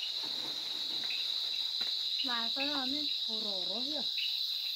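Steady high-pitched chorus of crickets trilling in the night. Two faint short stretches of voices come about halfway through.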